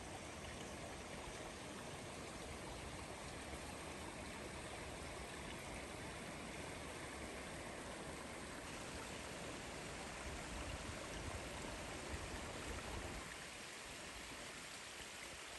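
Steady rushing of flowing creek water, with no distinct events.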